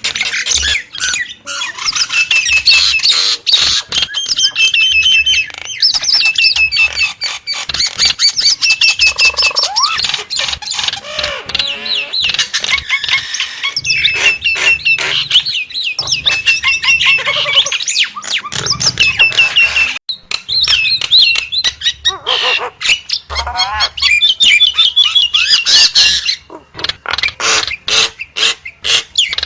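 Nias hill myna calling without pause: a fast, loud run of whistled notes, squawks and sharp clicking sounds, with a few lower gliding notes between them.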